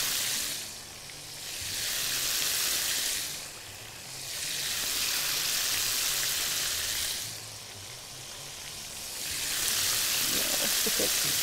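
Chicken strips sizzling in hot oil in a pan and a grill pan, the sizzle swelling and dying back about four times.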